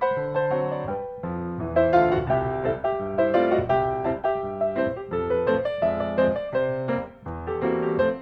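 Background piano music: a melody with chords over a steady bass.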